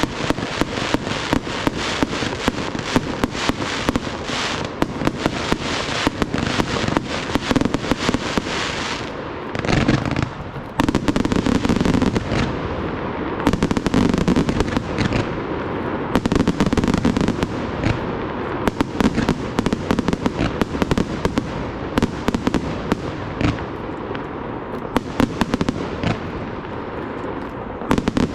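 A professional fireworks display: a dense, rapid barrage of bangs and crackling shells bursting. Heavier deep booms come in about a third of the way through.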